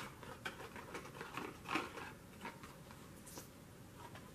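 A small paperboard cosmetics box being pried and torn open by hand: faint, irregular scratchy clicks and crinkles of card and fingernails, with a slightly louder crackle nearly two seconds in.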